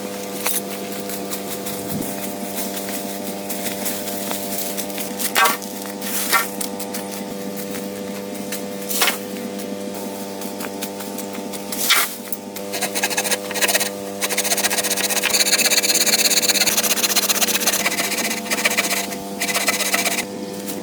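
Hand work on wood: a few sharp knocks, then several seconds of continuous rasping, like sawing or scraping wood, over a constant low hum.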